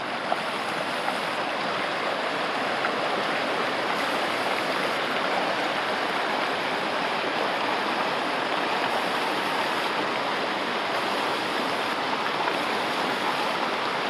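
Small stream running steadily over rocks, a constant rushing of water.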